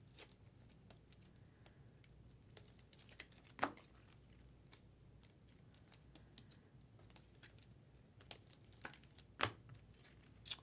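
Faint crinkling and tearing of a trading-card pack wrapper being opened by hand, with a few sharper crackles, the loudest about three and a half seconds in and about a second before the end.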